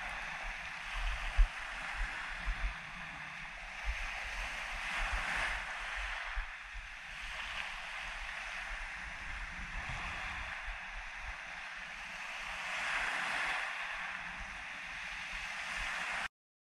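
Small waves breaking and washing up a pebble shore in steady surf that swells twice, with wind buffeting the microphone in low rumbles and one sharp knock about a second and a half in. The sound cuts off suddenly near the end.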